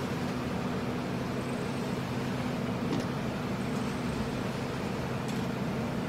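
Machinery of a biochar production line running steadily: screw conveyors with their chain drives and motors give an even mechanical hum with a low, constant drone. A faint click comes about three seconds in.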